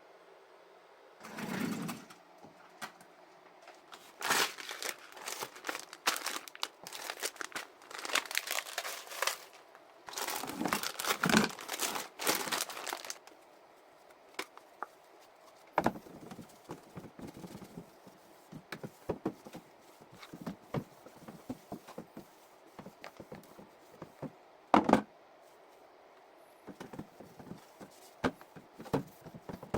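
Packaging being crumpled and crinkled by hand in dense bursts for the first dozen seconds, then scattered light knocks and clicks of items being handled, with a sharper double knock near the end.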